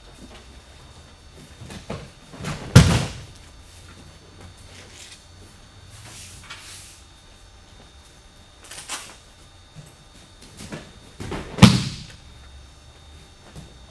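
Two loud thuds of a judoka being thrown onto tatami mats and landing in a breakfall, one about three seconds in and one near the end, with softer footfalls and rustling of the judo uniforms on the mat between them.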